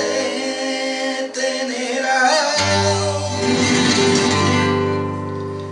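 Flamenco song: a male cantaor singing a wavering, ornamented vocal line, accompanied by a flamenco guitar.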